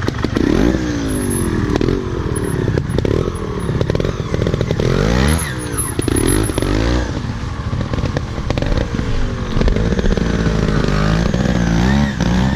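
Motorcycle engine revving up and down over and over, its pitch rising and falling every second or two over a rough low rumble.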